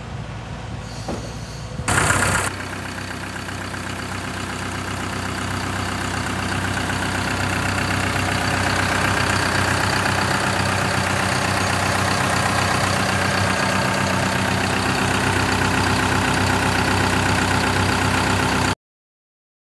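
Caterpillar M315D wheeled excavator's turbocharged diesel engine running steadily at idle, heard close up at the open engine bay. There is a brief loud rush about two seconds in, then the engine sound grows a little louder and cuts off abruptly near the end.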